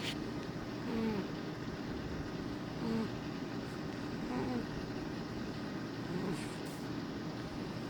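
Domestic cat snoring in its sleep: a steady low rasp with a short whistling rise and fall on each breath, about every two seconds.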